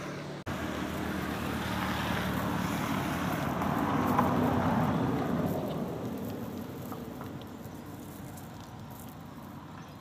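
A road vehicle passing by, growing louder to a peak about four seconds in and then fading away.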